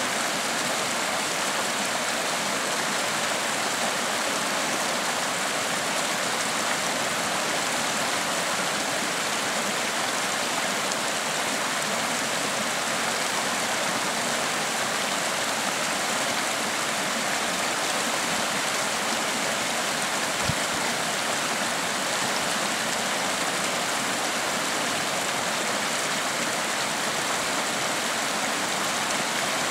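Mountain creek running over rocks: a steady, unbroken rush of water.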